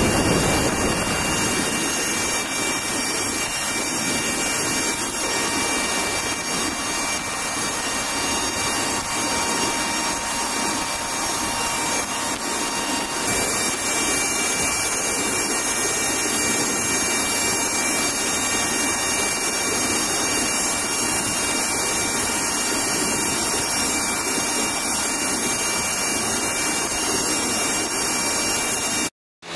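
Steady engine and rushing-air noise of aircraft in flight, heard from aboard an aircraft, with thin steady high whines over an even roar-free hiss and no clear rotor beat. It cuts out briefly near the end.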